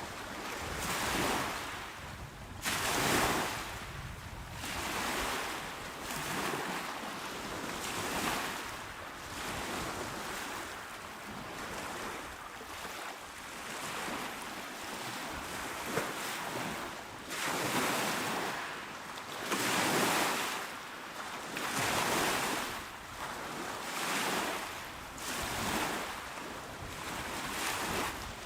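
Calm sea waves washing onto a shore, one soft surge and retreat after another, about every two seconds.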